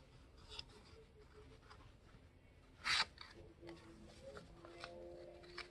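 A sheet of printer paper being folded and creased into a paper airplane, with faint crackles and one short, loud rustle about three seconds in.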